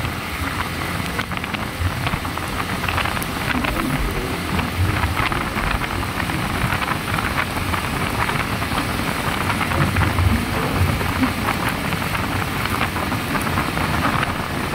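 Steady rush of wind and road noise from a moving motorcycle, with scattered crackles of wind buffeting the microphone and the engine and tyres rumbling underneath.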